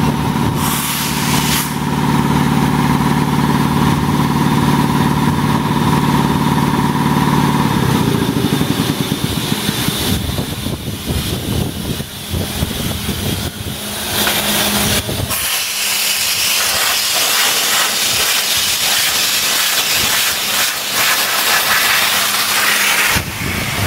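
Ingersoll Rand 10 hp air compressor pump running steadily, its even hum ending about eight seconds in. From about fifteen seconds in, a loud steady hiss of compressed air blowing out of the tank's drain valve.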